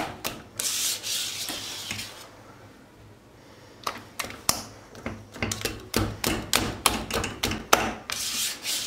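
A wire whisk beating thick pastry cream in a stainless steel pot, scraping and clicking against the metal sides and bottom in quick strokes. The strokes ease off briefly about two seconds in, then pick up again at a steady pace.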